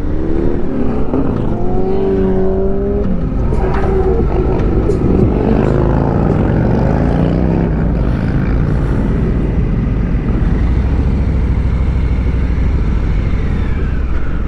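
Harley-Davidson Street Bob 114's Milwaukee-Eight V-twin running under way. Its pitch rises over the first couple of seconds, holds, then drops about three seconds in, and the engine runs steadily from there.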